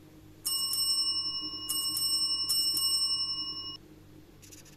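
Notification-bell sound effect of a subscribe-and-like animation: a small bell struck three times, ringing on and then stopping abruptly. A few faint clicks follow near the end.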